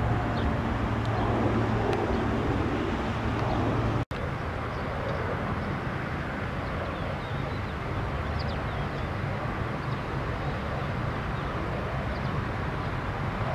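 Steady outdoor background of distant road traffic, with scattered faint short high chirps. The sound drops out for an instant about four seconds in.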